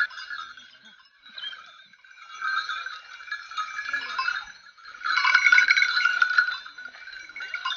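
Many small bells jangling and clanking unevenly in bursts as the leashed hunting hounds that wear them move about, loudest from about five to six and a half seconds in.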